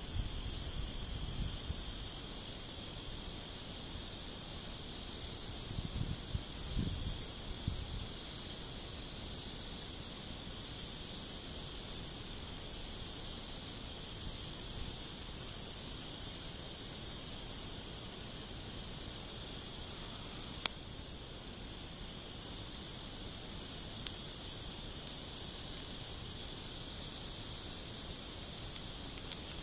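Steady high-pitched chorus of crickets and other field insects, with a single sharp click about two-thirds of the way in.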